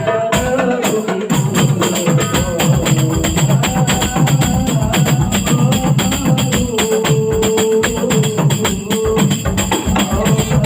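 Hadroh ensemble playing a fast, dense frame-drum rhythm on rebana and jingled tambourines, with a held melody line above it.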